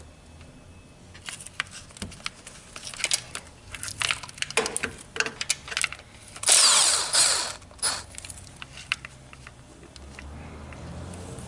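Tools working on transmission bolts: a run of sharp metal clicks and knocks, with a power tool such as a cordless ratchet running for about a second partway through, the loudest sound, then a few more clicks.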